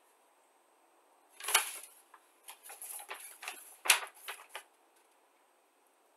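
Paper model-kit instruction leaflet rustling and crackling as it is handled and lifted, a run of crisp crackles with two louder ones about a second and a half and about four seconds in.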